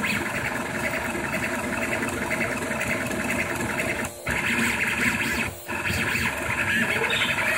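Rostock MAX delta 3D printer running a print: its stepper motors buzzing in shifting tones as the print head moves. It cuts out briefly twice, about four and about five and a half seconds in.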